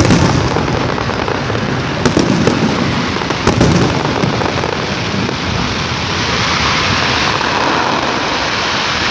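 Fireworks going off: several sharp bangs in the first four seconds, then a continuous dense hiss and crackle.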